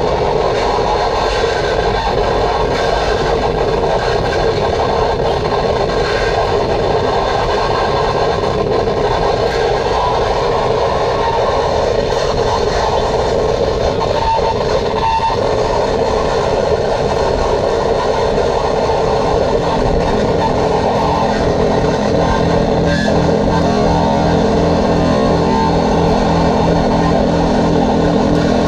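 Harsh noise music: a loud, dense wall of distorted electronic noise from effects pedals played through a small amplifier. A fast, regular low throbbing pulse joins about two-thirds of the way in.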